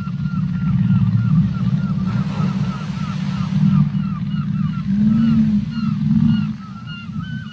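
Whale calls underwater: a low steady rumble with a couple of short moans, over which a long run of short, quick chirps repeats about three times a second. A rush of water noise swells and fades about two seconds in.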